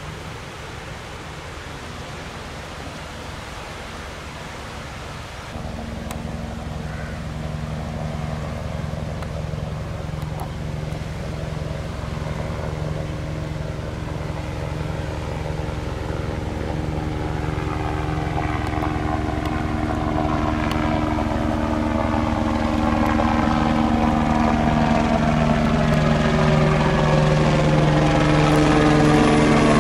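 A motor running at steady pitch comes in suddenly and grows steadily louder, as if approaching.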